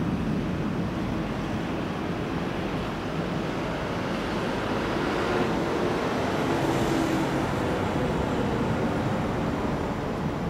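Steady outdoor rumble with wind noise on the microphone, with the tail of a distant thunder roll dying away in the first second. A faint engine-like drone runs through the middle.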